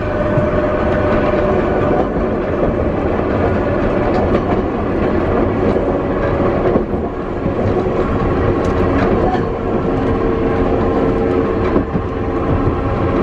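Hankai Tramway Type 161 streetcar No. 162 running along the line, heard from inside the car. A steady motor-and-gear whine sits over the rumble of wheels on rail, with a few clicks as the wheels pass over rail joints.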